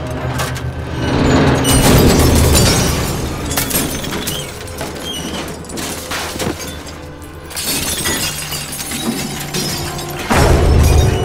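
Film soundtrack of music with loud crashes, ending in glass shattering about ten seconds in as shards fly.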